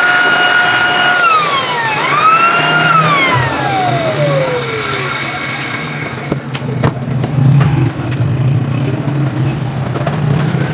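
A handheld electric power tool's motor whines up to speed, is released and spins down about a second in. It is triggered again briefly and then coasts down over a couple of seconds. After that there is a low hum with scattered clicks and knocks.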